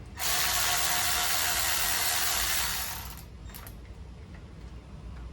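A tool whirring in one steady burst of about three seconds, running out an engine bolt that has just been broken loose; a second burst starts right at the end.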